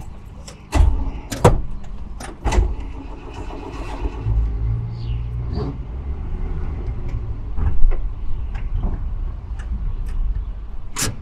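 Old pickup truck's engine running low and steady as it drives and comes to a stop, with several sharp clunks and knocks, the loudest near the end.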